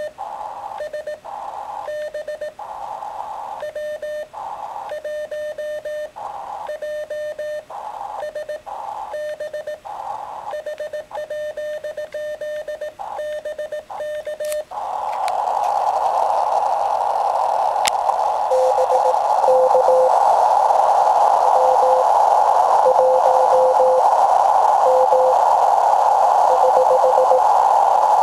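A low-power CW transceiver: Morse code keyed as steady beeps at one pitch. About halfway through it switches to receive, with a steady hiss of band noise in which a fainter Morse signal keys at a slightly lower pitch.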